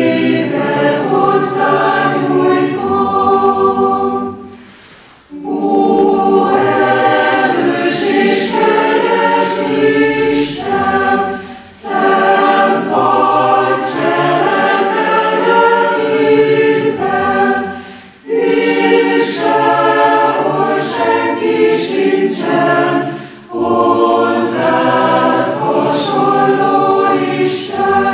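A chamber choir singing in several voices, in phrases separated by short pauses.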